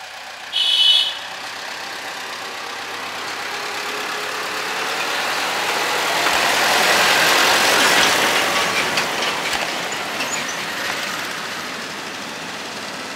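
Diesel tractor towing a loaded trailer down a steep hairpin, its engine growing louder to a peak as it passes about eight seconds in, then fading, with a motorcycle following close behind. A short vehicle horn toot sounds about half a second in.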